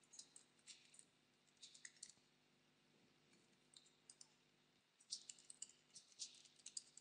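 Faint keystrokes on a computer keyboard: typing in short bursts of quick clicks with pauses between them.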